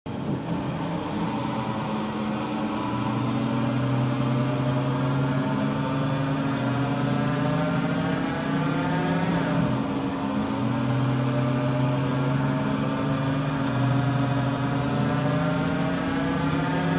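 Weboturn WT 400 CNC lathe running with a steady low machine hum and a spindle whine. The whine rises slowly in pitch for about nine seconds, drops sharply, then climbs again to the end.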